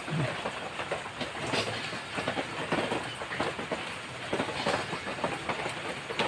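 Heavy rain falling, a steady wash of noise with many close, irregular drop hits.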